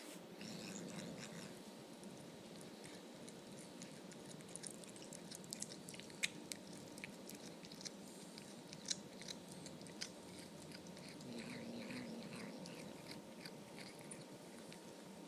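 Savannah cat biting and chewing a chicken drumstick: faint wet chewing with scattered sharp crunches and clicks of teeth on meat and bone.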